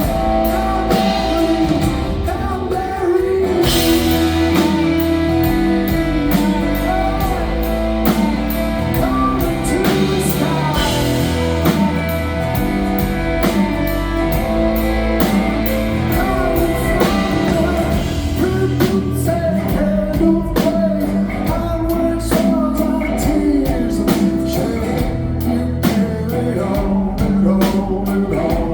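Live rock band playing a song with a singer, electric guitar and a drum kit keeping a steady beat.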